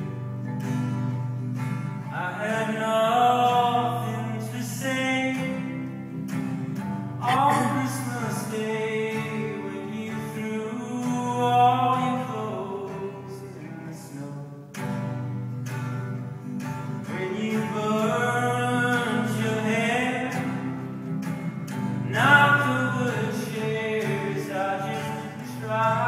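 A man singing, accompanying himself on a strummed acoustic guitar. The voice comes in phrases of a few seconds with short stretches of guitar alone between them.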